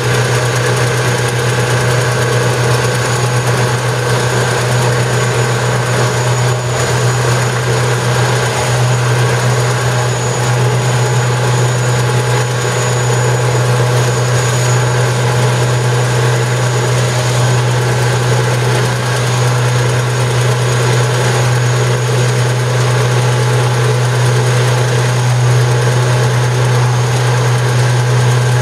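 Stripe Hog stripe-removal truck running steadily: a loud, even engine drone with a strong deep hum.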